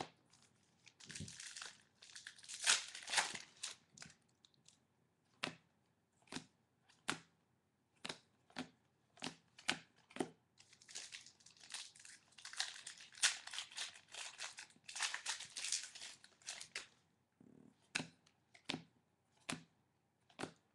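Trading-card pack wrappers torn open and crinkled in two longer stretches, about a second in and again midway, between many sharp clicks of cards being flicked and tapped as they are sorted.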